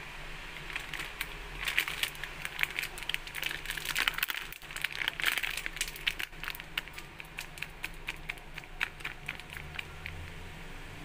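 Chicken tail pieces being stirred in dry all-purpose flour to coat them: a run of small crackling clicks and rustles, thickest in the first half and thinning out later.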